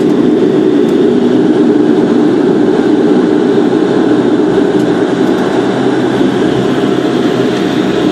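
Turboprop airliner's engine and propeller running steadily, a loud, even, deep roar heard from inside the cabin as the plane rolls along the runway after landing. A faint steady whine joins about six seconds in.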